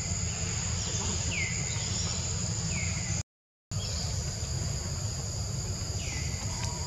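Forest ambience of insects droning steadily at a high pitch, with a few short falling chirps and a steady low rumble underneath. The sound cuts out completely for about half a second roughly three seconds in.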